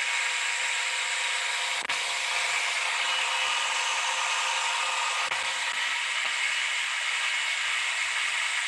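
Food processor motor running steadily at full speed, its blade pureeing a batch of hummus: an even whirring with several held tones.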